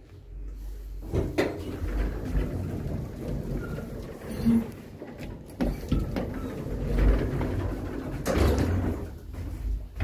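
Clicks and knocks inside the cabin of a 1997 KONE passenger lift over a low rumble, with a car-panel button pressed about six seconds in and a longer rustling swell near the end.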